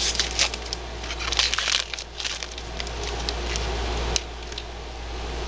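Hockey card pack wrapper crinkling and crackling as it is torn open and handled, densest in the first couple of seconds, with a sharp click about four seconds in.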